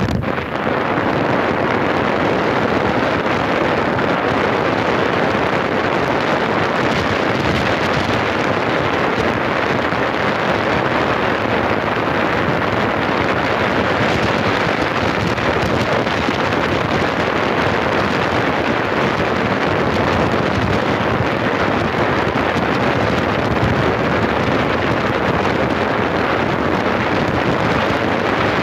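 Steady rush of wind on the microphone, mixed with road noise from a moving vehicle.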